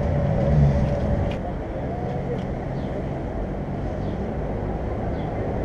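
City street traffic: a steady run of vehicle engines and tyres, with a louder vehicle passing about half a second in.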